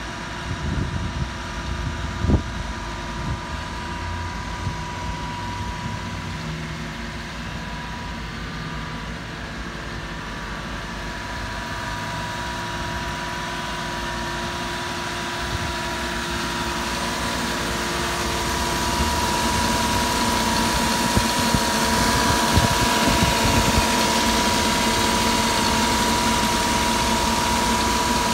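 Mitsubishi Minicab kei truck's small engine idling steadily, growing louder toward the end as the microphone nears the engine bay under the seat. A single knock about two seconds in.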